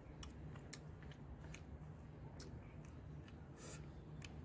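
Quiet eating sounds: faint, scattered clicks and taps of satay skewers and fingers against a plastic takeaway tray, over a low steady hum.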